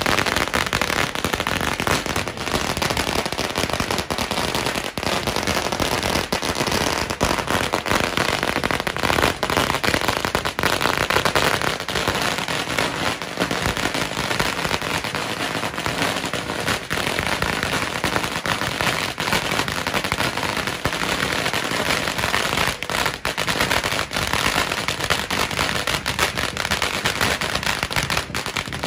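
A long string of firecrackers going off in a continuous rapid crackle of bangs.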